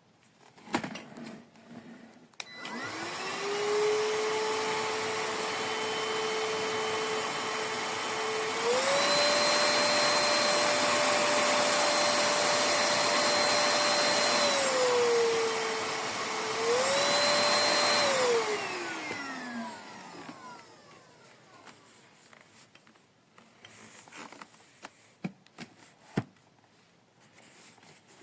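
Tower VL25 stick vacuum cleaner switched on: its motor spins up to a steady whine, then steps up to the higher speed, drops back to the lower speed and steps up again before it is switched off and winds down. There is light handling clicking before and after.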